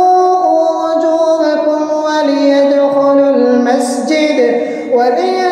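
A man's voice reciting the Quran in slow, melodic tajwid chant, drawing out long held notes that step and slide in pitch, with a short breath about four seconds in.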